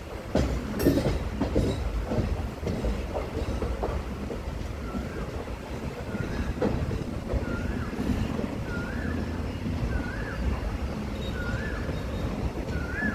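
Passenger train running on the rails with a steady low rumble and a few knocks from the wheels in the first seconds. From about five seconds in, a short rising squeak repeats roughly every second and a half.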